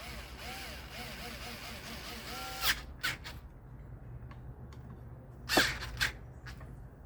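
Sharp clicks and knocks of ceiling fan blades, screws and hardware being handled while the blades are fitted, the loudest about a third of the way in and past the middle. For the first few seconds a steady hiss with faint wavering tones runs underneath.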